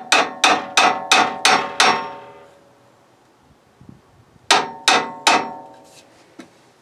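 Hammer striking a seized hydraulic-line flare fitting on a Case loader arm, with sharp blows that ring like metal. A quick run of about six blows, roughly three a second, comes first, then a pause, then three more. The fitting is being knocked to free it and does not come loose.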